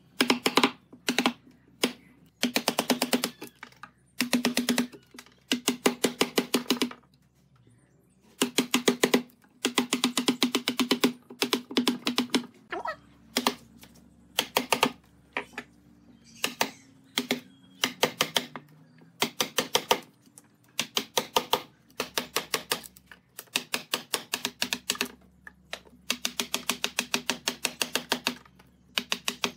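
Wooden mallet striking a chisel handle, driving the blade into a wooden stump: bursts of rapid, sharp knocks, each about a second long, with short pauses between.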